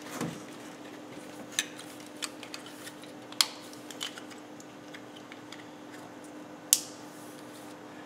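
Ignition coil packs and their plastic connectors being pulled and pushed back into place on the engine, swapping the suspect coil to another cylinder: a few sharp clicks, the loudest about three and a half and nearly seven seconds in, over a steady low hum.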